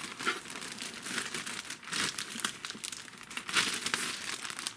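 Clear plastic bag crinkling and rustling as a boxed action figure is worked out of it, an uneven run of sharp crackles.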